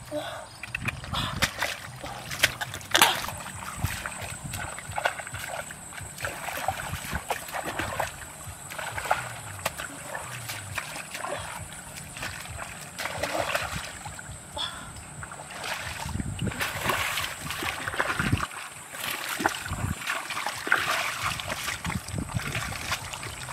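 Irregular splashing and sloshing of hands and bare feet working and wading through shallow muddy water. A thin, steady high tone runs along underneath from about three seconds in.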